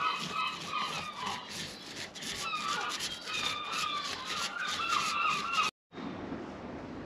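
Small paint roller rolled over a boat hull, a rubbing sound of many short strokes with high chirping calls over it. It cuts off abruptly near the end, leaving a fainter steady hiss.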